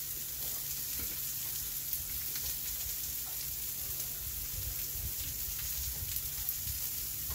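Salmon fillets sizzling in melted butter on an indoor electric grill: a steady frying hiss.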